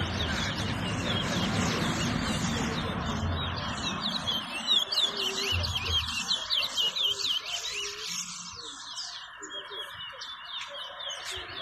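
Towa-towa (chestnut-bellied seed finch) singing in a song contest: fast runs of sweeping, warbled chirps. A low background rumble fades out about four seconds in.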